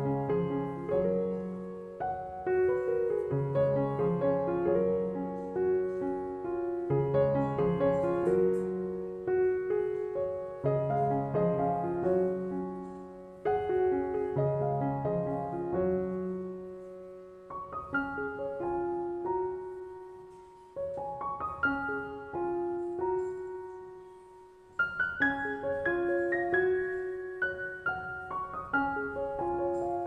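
Background piano music: a slow melody of single notes over low chords, the low notes dropping out after about halfway and the tune carrying on higher up.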